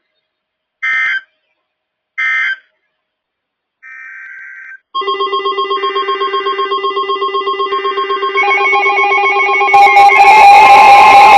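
Warbling EAS/SAME digital data bursts from a NOAA Weather Radio broadcast: the end-of-message bursts repeated about a second apart, then a quieter data burst about four seconds in. About five seconds in, weather alert radios go off: a loud multi-tone electronic alarm pulsing about six times a second. More tones join near eight seconds, and a harsher, noisier layer joins about ten seconds in.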